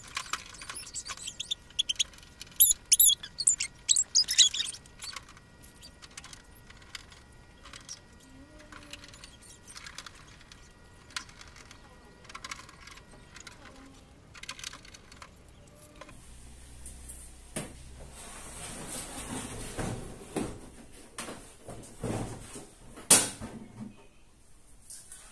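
Water dispenser's back panel being handled and fitted back on: scraping squeaks and clatter in the first few seconds, then scattered clicks and knocks, and a stretch of rustling and bumping near the end with one sharp knock.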